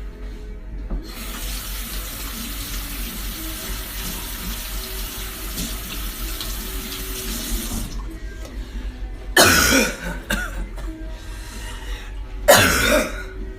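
Kitchen sink tap running for about seven seconds, then shut off, followed by two loud short bursts of noise a few seconds apart.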